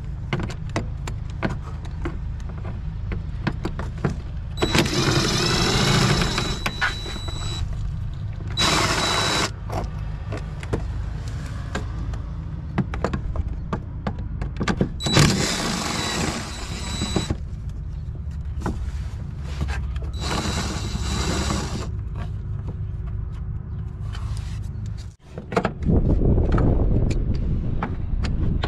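Mechanic's tools clicking and knocking while working on a van's cooling fan and fan clutch, over a low rumble. There are four bursts of a power tool, each one to three seconds long.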